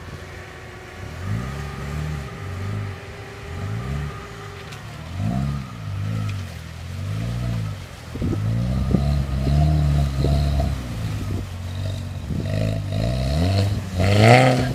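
Lada Niva's engine revving up and down again and again as the car works through a muddy ditch, with the loudest rev near the end.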